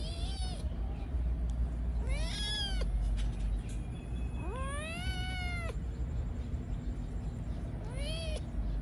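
Cat meowing four times, each call rising then falling in pitch, the third one longest, over a steady low rumble.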